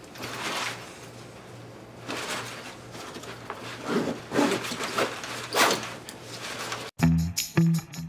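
Rustling and zipping of a backpack being packed, several swishes in a row over a faint steady hum. About seven seconds in it cuts abruptly to music with a plucked bass and guitar.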